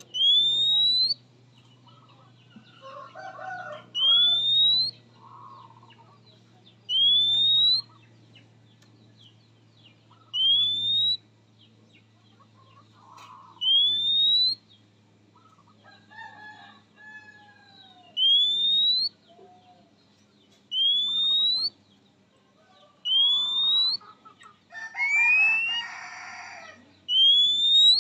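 Oriental magpie-robin calling: a clean whistle that rises over about a second, repeated about every three seconds, with fainter chirps and calls between.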